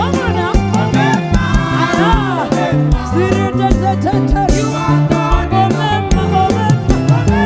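Gospel praise song: a singing voice over a bass line and drums keeping a steady beat.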